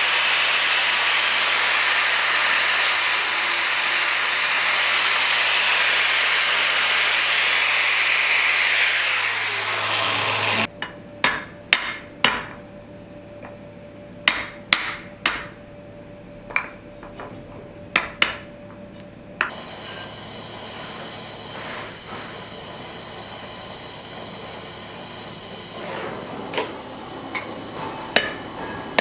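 A power tool runs steadily with a low hum, then winds down and stops about ten seconds in. After that comes a series of sharp, irregular hammer taps, a few more coming near the end.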